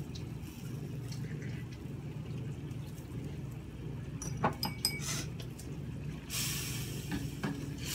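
Stir-fry sizzling in a stainless steel skillet, a hiss that starts about six seconds in while the pan is stirred with a wooden spatula. A few short metallic clinks come just before, over a steady low hum.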